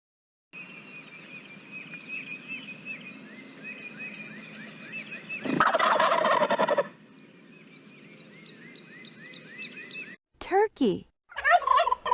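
Domestic turkey tom gobbling once, a loud rolling gobble of about a second and a half midway through.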